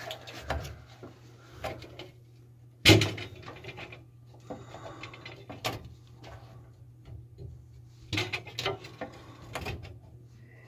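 Scattered metal knocks and scraping of a crescent wrench working a corroded supply-line fitting loose on top of a water heater. There is a sharp knock about three seconds in and a cluster of smaller knocks near the end.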